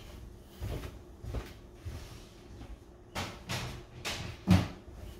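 A series of separate knocks and thumps from kitchen cupboards and things being handled on the counter, about seven in all, the loudest near the end.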